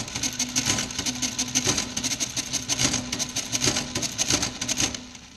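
A Facit CA1-13 electromechanical calculator running a multiplication: its motor hums steadily under a rapid, even clatter of the mechanism cycling, which stops about five seconds in.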